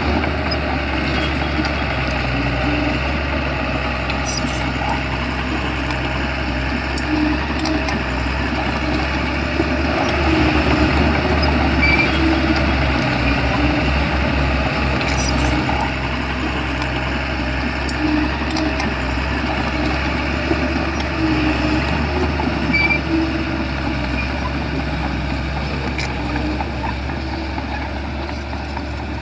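Shantui bulldozer's diesel engine running steadily under work, with a few sharp metallic clicks.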